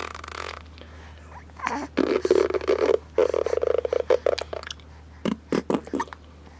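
Mouth fart noises made by blowing raspberries with the lips: two long buzzing raspberries, then a run of short ones near the end.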